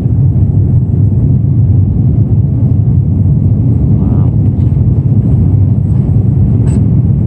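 Airliner cabin noise in cruise: a steady low rumble of the engines and airflow heard from inside the cabin.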